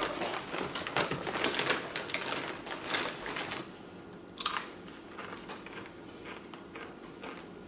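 Plastic snack-chip bag crinkling as a hand rummages in it, then a sharp crunch as a chip is bitten about four seconds in, followed by fainter chewing crunches.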